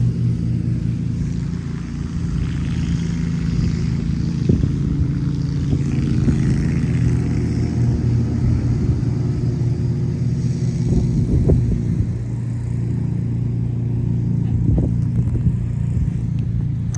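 Lawn mower engine running steadily: a low, even drone.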